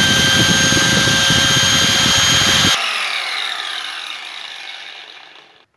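Black & Decker G720 angle grinder (rated 11,000 RPM) running at full speed with a steady high whine, then switched off about three seconds in and spinning down, its whine falling in pitch and fading out over the next few seconds.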